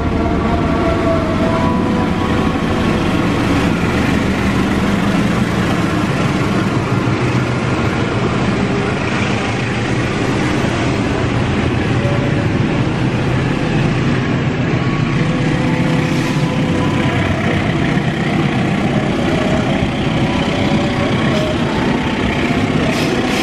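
Diesel-hauled container freight train passing close by on the station track. The locomotive goes by near the start, followed by a long, steady rumble of the container wagons rolling over the rails.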